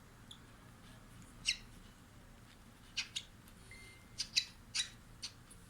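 Hand-held cockatiel chick giving about seven short, high squeaky begging calls at feeding time.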